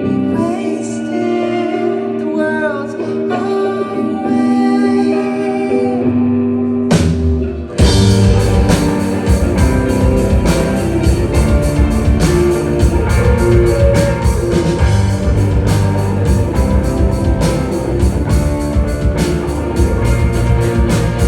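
Live music: a slower passage of held notes with a singing voice, cut off about seven seconds in and replaced by a full rock band playing, with drum kit, guitar and vocals.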